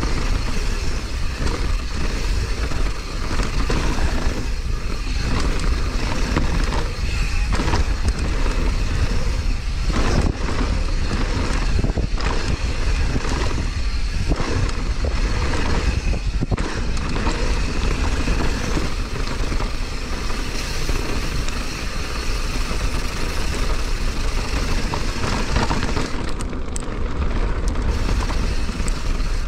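Downhill mountain bike descending a trail at speed: steady wind buffeting the microphone over tyre rumble on dirt, with frequent knocks and rattles as the bike hits bumps.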